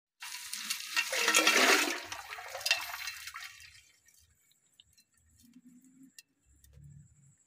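Crushed ice tipped out of a cloth bundle into a metal pot of yogurt: a rush of ice chunks sliding and splashing in, loudest about a second in and fading out over about three seconds, chilling the yogurt before it is churned for lassi and butter.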